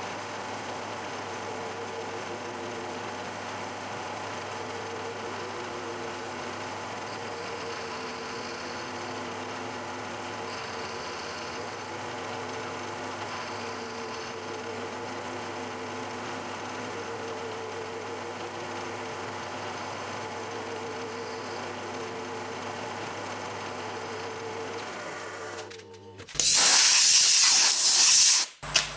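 Milling machine running with an end mill cutting an aluminium part: a steady hum with a tone that swells and fades every second or so. Near the end the cutting stops and a loud hiss follows for about two seconds, as the chips are blown clear with compressed air.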